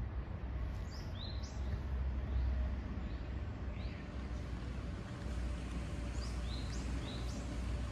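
Small birds chirping: short, sharp high calls, often two or three in quick succession, over a steady low rumble.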